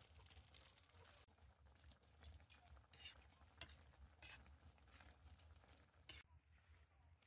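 Faint, scattered light clicks and taps of kitchen utensils and dishes being handled, over a low steady hum.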